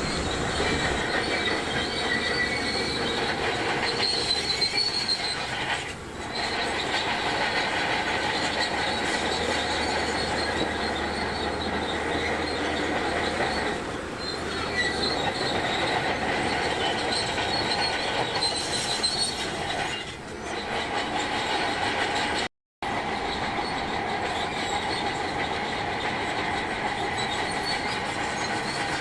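A Shantui DH17C2 crawler bulldozer is working. Its engine runs steadily under the high metallic squeal and clank of its steel tracks, which ease off briefly a few times. About three-quarters of the way in, the sound cuts out for an instant.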